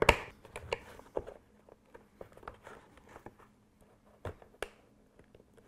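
Faint scrapes and small clicks of a flat-blade screwdriver prying a metal push-on trim clip up off its locator pin on a door panel, then fingers working the clip loose, with two sharper clicks a little after four seconds in.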